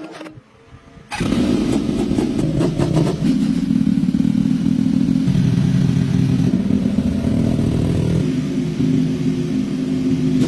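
Kawasaki ZX-4R motorcycle's inline-four engine running steadily, coming in abruptly about a second in.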